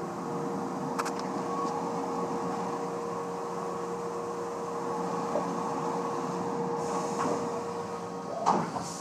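Haas VF4 CNC vertical mill's spindle and end mill cutting 304 stainless steel under flood coolant: a steady whine over the hiss of the coolant spray, with a click about a second in. About eight seconds in the steady tone stops and a few knocks follow.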